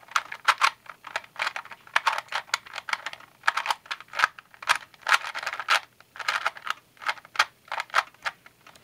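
Rubik's cube being scrambled by hand: its plastic layers click and rattle as they are turned quickly, in irregular runs of several clicks a second.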